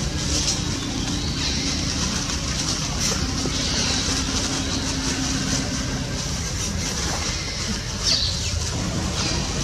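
Steady outdoor background noise: a continuous low rumble with a few faint, short high chirps over it, the clearest about eight seconds in.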